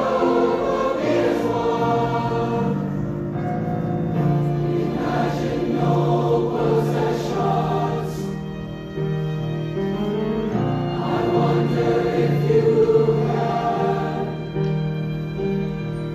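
High school choir singing in harmony, with several voice parts holding sustained notes together.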